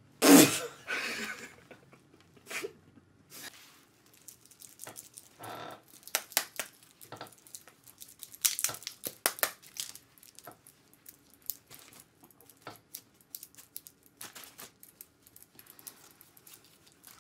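Close-up ASMR makeup-tool sounds: a quick run of sharp clicks and taps from brushes, a palette and tools, with crinkling of a plastic salon cape. A loud, breathy, noisy burst comes right at the start.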